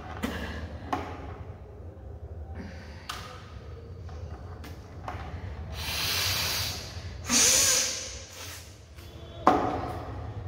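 A woman bringing up water during Kunjal Kriya (the yogic water-vomiting cleanse): water splashing from her mouth, then forceful snorts and blows clearing water from her nose. The two loudest snorts come in the second half, the last one sudden and sharp.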